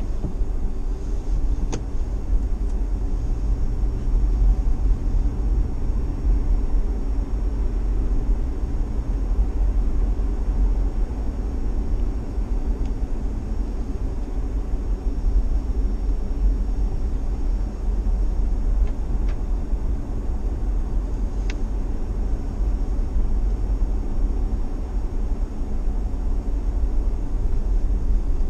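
Steady low rumble of a car driving on a wet road, engine and tyre noise heard from inside the cabin, with a faint steady hum in the first few seconds and a few faint ticks.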